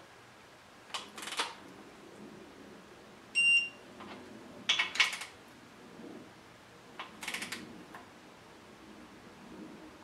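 Digital torque wrench being worked on the crankshaft main cap bolts of a Dodge 5.7 Hemi block: three short runs of ratchet clicks. About three and a half seconds in, one short high electronic beep sounds, the wrench signalling that its target is reached.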